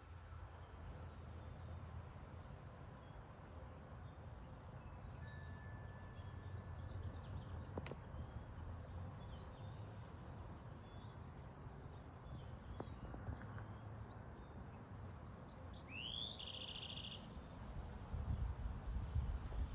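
Faint chirping of small birds: scattered short high calls throughout, with a louder rising call about 16 seconds in, over a steady low rumble.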